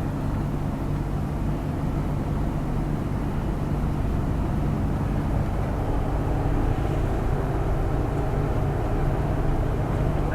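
Volvo semi-truck's diesel engine running steadily on the move, with a low drone and road noise heard from inside the cab.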